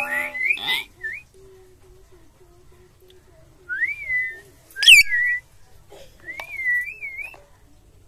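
Common hill myna whistling: short phrases of quick up-and-down whistled notes with pauses between them, the loudest and sharpest note about five seconds in.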